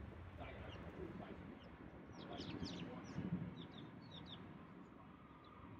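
Bird chirping: a quick run of short, high, falling notes, most of them in the middle seconds, over a low background rumble with a brief low bump about three seconds in.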